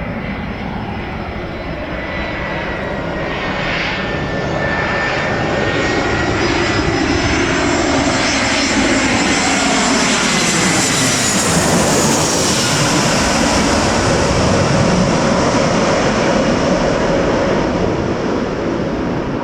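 Airbus A320 jet engines passing low overhead, growing louder to a peak about halfway through and then easing, with a high whine that slowly drops in pitch and a sweeping whoosh as it goes by. This is typical of the airliner going around after abandoning its landing in strong wind.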